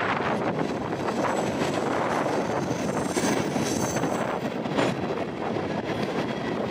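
Freight train cars rolling past on the rails, a steady noise of wheels on track, with a faint high-pitched squeal for about a second midway.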